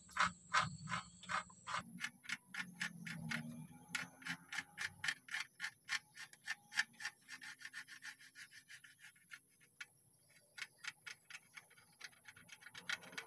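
2B pencil scratching back and forth over paper pressed on a car's stamped chassis number, taking a rubbing of it: quick, even strokes, several a second, with a short pause about ten seconds in.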